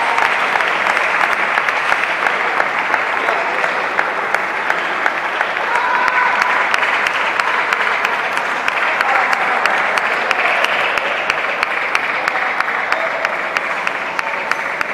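Spectators applauding, a dense steady clapping that slowly thins out near the end, with a few voices calling out over it.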